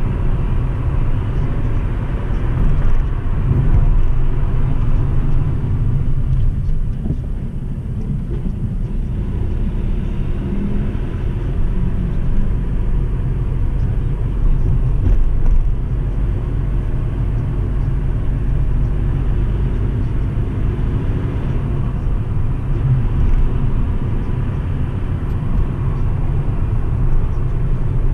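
Car driving at a steady speed: a continuous low rumble of engine and road noise, with no sharp events.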